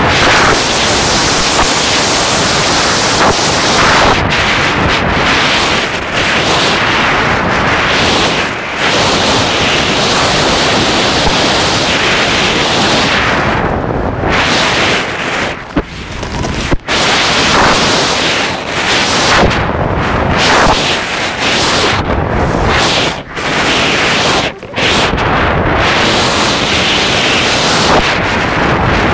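Wind buffeting the camera's microphone while skiing downhill: a loud, continuous rumbling rush that drops out briefly a few times.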